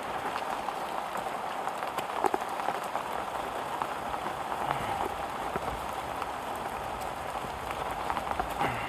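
Steady rain falling on foliage and the ground, an even hiss with scattered drop ticks.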